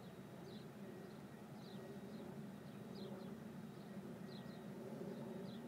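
A car engine idling, heard from inside the cabin as a steady low hum, with short high bird chirps coming every second or so at irregular intervals.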